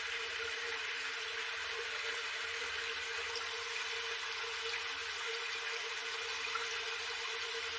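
Steady rushing of water, an even hiss that neither rises nor falls.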